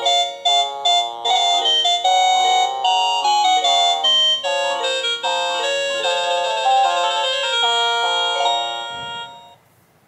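INTENDVISION wireless doorbell receiver playing one of its electronic chime melodies: a tune of quick synthesized notes that turns to longer held notes and stops about nine and a half seconds in.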